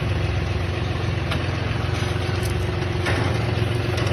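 A vehicle engine idling steadily, with a low, even rumble and a faint constant hum.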